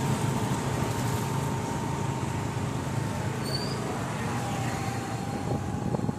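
Steady riding noise from a motorcycle on the move: its engine drones evenly under road and wind noise, with a thin steady whine above it.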